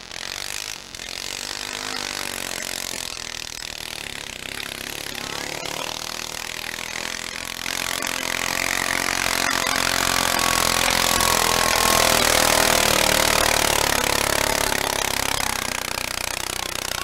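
Small garden tractor engine under heavy load pulling a weight-transfer sled. It revs up in the first few seconds, then runs hard and grows louder around the middle of the pull before easing slightly near the end.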